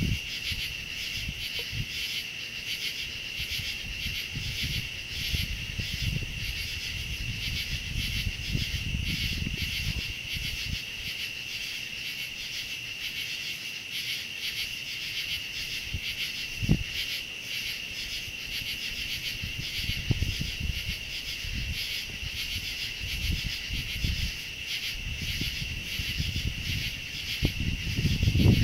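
Night chorus of crickets and other insects: a steady, evenly pulsing trill that never lets up. Underneath it runs a low, irregular rumble, and there is a single short knock about 17 seconds in.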